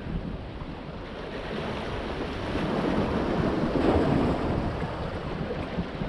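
Sea waves washing in and breaking against the large rocks of a stone breakwater, one wave swelling to its loudest about four seconds in before easing back.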